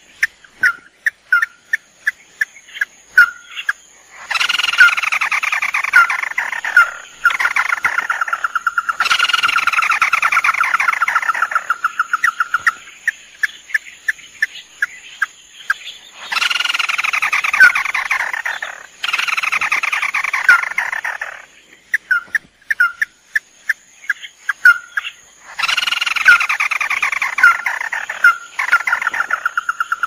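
Crakes (tikusan, a red-eyed crake), male and female, calling in a lure-call recording: spaced sharp single notes build into long, loud, falling rattling trills. The sequence repeats about every twelve seconds over a faint steady high whine.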